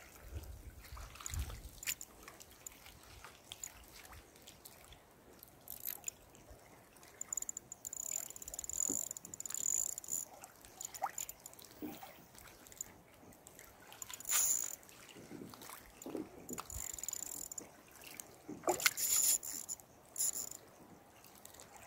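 Faint, intermittent trickling and splashing of water at the lake's edge, with a few slightly louder bursts around two-thirds of the way through and near the end.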